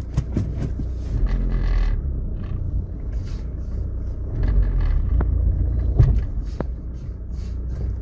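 A 1999 Audi A3 engine idling, with a few sharp clicks from the brakes as the brake pedal is pressed, the loudest about six seconds in. This is the clacking the owner hears on braking; it persists despite new brake pads and bled brakes.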